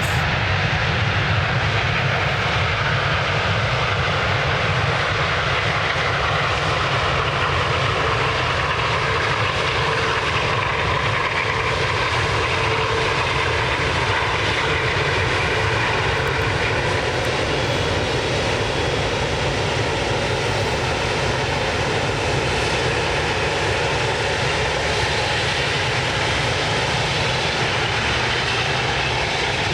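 Airliner engines running: a steady, loud rumble and hiss with faint tones that shift slowly in pitch.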